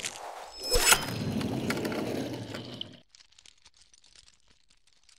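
Sound effect of an animated logo intro: a short build into a sharp hit about a second in, then a noisy tail that fades and cuts off about three seconds in. Faint scattered clicks follow.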